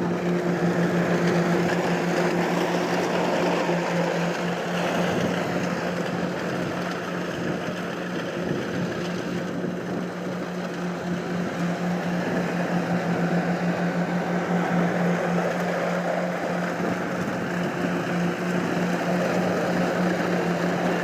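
Kubota DC 93 combine harvester's diesel engine and machinery running steadily, a constant low drone with a dense mechanical rush over it.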